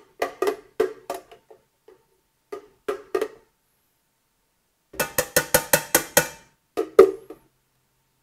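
Metal tongs and a glass blender jar knocking against a stainless steel sauté pan as thick sauce is emptied into it. There are scattered sharp knocks, then a quick run of about eight taps around five seconds in, and two louder knocks near seven seconds.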